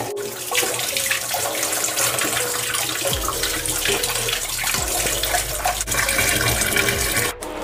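Water running from a tap into a stainless steel sink while leafy greens are rinsed under the stream by hand. The sound drops out briefly near the end.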